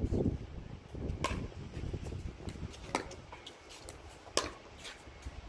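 Pickleball paddles hitting a plastic pickleball in a rally: sharp pops roughly every second and a half, the last two close together near the end.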